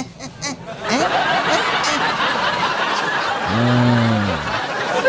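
Audience laughter swelling from about a second in and running on. A man's voice draws out one long low sound about three and a half seconds in.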